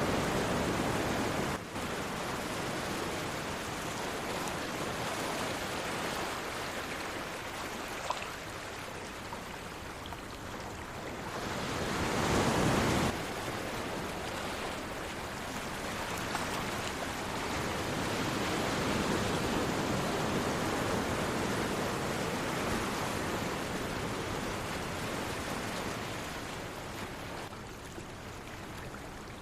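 Sea waves washing ashore, a steady hiss of surf that swells and ebbs. One bigger wave surges in about twelve seconds in and breaks off suddenly.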